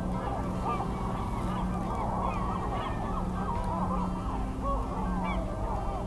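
A dense chorus of many waterbirds calling over one another, short rising-and-falling calls overlapping without a break.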